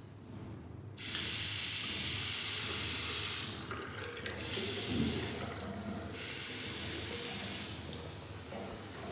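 Water from a tap running into a washbasin, turned on and off three times: a long run, a short burst, then another run, each starting and stopping abruptly.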